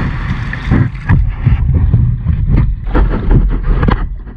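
Kayak paddle churning and splashing through mud and shallow water in short, irregular strokes, with wind buffeting the microphone.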